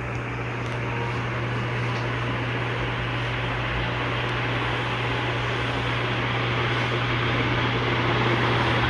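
Ventisol Fênix ceiling fan running: a steady low motor hum under a rush of moving air that gradually grows louder.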